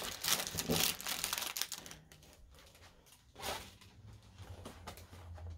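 Clear plastic bag crinkling and rustling as it is handled for about two seconds, then a lull and one short rustle a second and a half later.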